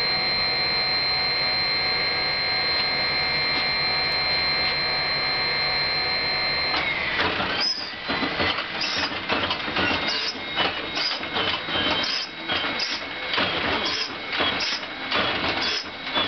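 An Il-14T's ASh-82T radial engine being turned over by its starter without firing, cowlings open. A steady starter whine holds for about seven seconds, then drops in pitch as the engine is cranked, and uneven rhythmic pulses follow, about two a second, as the propeller turns over.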